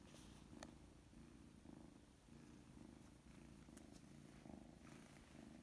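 Tabby kitten purring faintly and steadily while being stroked, with a few small rustles.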